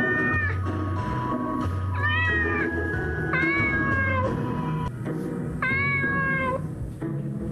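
Domestic cat meowing four times, long drawn-out calls of about a second each that rise at the start and then hold, over background music.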